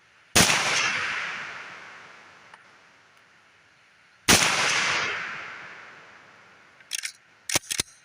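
Universal M1 carbine firing .30 Carbine rounds: two shots about four seconds apart, each followed by an echo that dies away over about two seconds. A few short, sharp clicks follow near the end.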